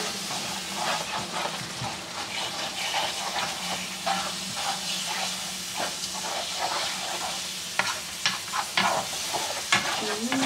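Minced-meat bolognese sauce sizzling in a frying pan as wooden tongs stir and scrape through it, with a few sharp taps of the tongs against the pan near the end.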